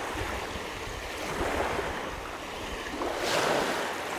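Small waves washing up onto a sandy shore, swelling twice, about a second and a half in and again near the end, with a low rumble of wind on the microphone.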